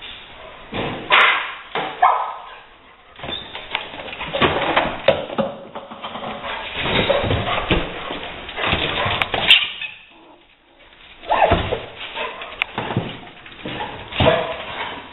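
A rottweiler barking and whining in irregular bursts, with a short lull about ten seconds in.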